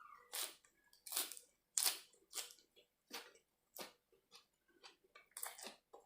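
A person chewing a mouthful of food close to the microphone, in a string of short, irregular chewing sounds. The loudest come in the first two seconds.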